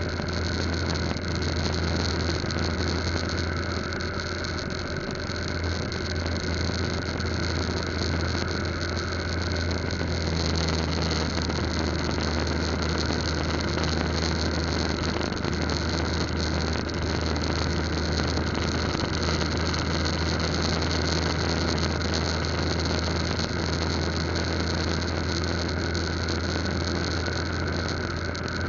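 Riding noise from a Yamaha Lagenda 115Z underbone motorcycle cruising steadily: a constant rush of wind over a steady low engine drone, with no revving or gear changes.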